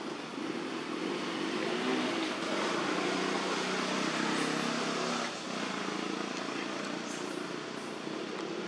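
A motor vehicle running by, heard as a steady rushing noise with a faint low engine hum. It swells about half a second in and drops back a little after five seconds. Faint high chirps near the end.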